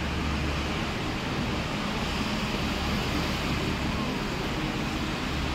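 Steady drone of a vehicle's engine and road noise, heard from on board as it drives up a steep road.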